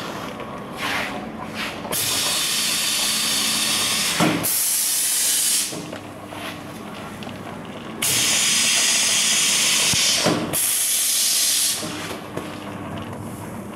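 Kitchen towel roll sealing and packing machine running steadily, with two long hisses of air, each lasting about four seconds.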